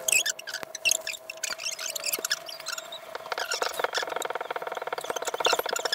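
Nitrile-gloved hands rubbing oil into a maple board, the gloves squeaking and chirping against the wood. About halfway through the rubbing turns into a rapid, stuttering squeak.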